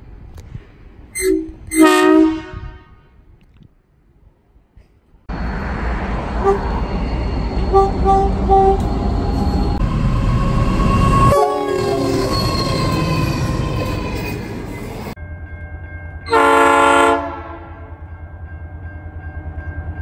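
Train horns from several trains in turn. First two short toots from a Transperth B-series electric railcar. Then a diesel freight locomotive runs with its engine loud and gives short horn notes, and later another diesel locomotive sounds one horn blast of about a second.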